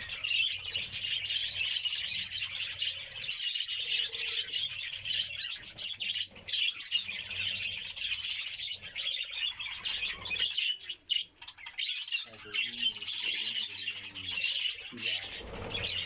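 A large colony of budgerigars chattering: a dense, continuous mass of warbling chirps from many birds at once.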